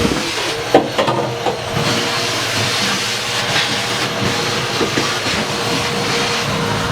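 Steady loud hissing noise with a faint steady hum, broken by a few sharp knocks in the first second and a half.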